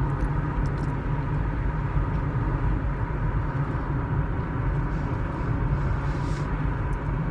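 Steady low rumble of a car heard from inside the cabin, with the engine running, and a few faint small clicks.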